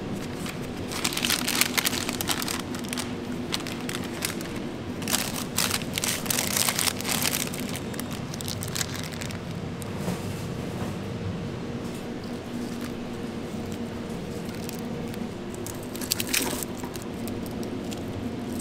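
White burger wrapping paper crinkling and rustling in several bursts as a burger is wrapped, over a steady kitchen hum.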